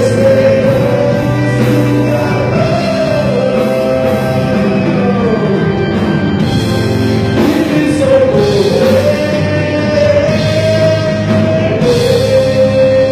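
Live rock band playing: a man sings long held, sliding notes over electric guitar and drums.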